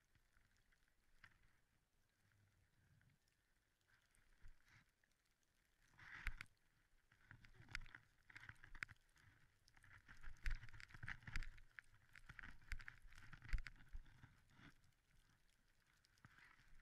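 Faint scraping and crunching of a snowboard sliding over snow, with sharp clicks; it grows louder from about six seconds in and eases off near the end.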